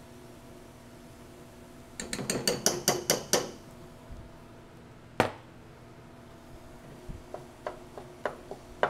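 A metal spoon clinking against a glass bowl and skillet as cooked rice is knocked out into the pan: a quick run of sharp clinks about two seconds in and one more sharp clink a few seconds later. Near the end, light scattered taps as the rice is stirred into the skillet.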